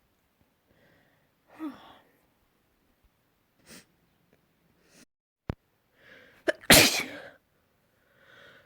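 A person sneezing: short catching breaths, then one loud sneeze about two-thirds of the way through. A sharp click comes about halfway.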